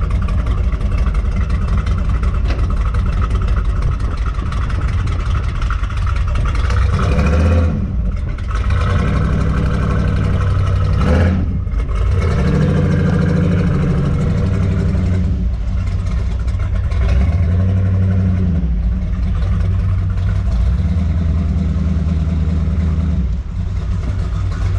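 A 427 big-block V8 in a custom 1949 GMC cab-over truck running, with the revs rising and falling a few times, around 8 and 12 seconds in.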